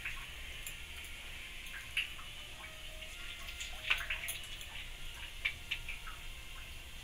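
Whole cumin seeds and dried red chillies sizzling in hot mustard oil as a tempering, a steady faint hiss with irregular small pops and crackles, the loudest about four seconds in.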